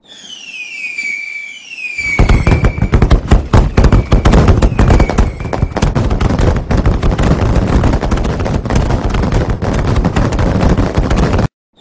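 Fireworks: several whistling rockets that fall in pitch, then from about two seconds in a dense barrage of rapid bangs and crackling, cutting off abruptly near the end.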